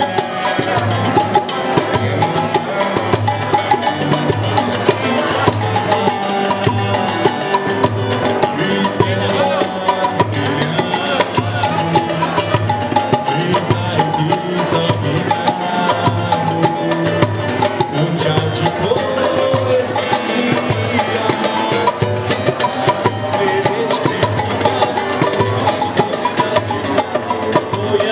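Live samba played by a roda de samba group: a surdo bass drum keeps a steady beat under pandeiro, cavaquinho and guitar, with group singing.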